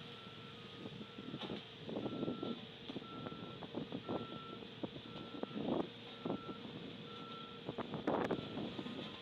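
Reversing alarm of a construction vehicle at an asphalt-paving job, a steady single-pitched beep repeating a little over once a second, with irregular louder bursts of vehicle noise among the beeps.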